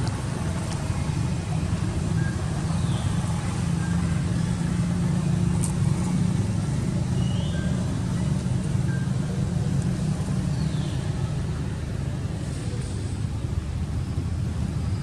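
Steady low rumble of background noise throughout, with a few faint short chirps and brief thin squeaks over it.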